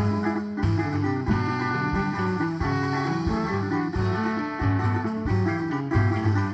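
Instrumental break of a bumba-meu-boi toada: a plucked guitar melody over a steady low drum beat, one stroke about every two-thirds of a second.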